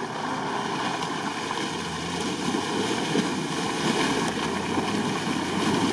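Jeep Wrangler's engine running under load as it ploughs through deep muddy water, with water and mud splashing and churning around the wheels.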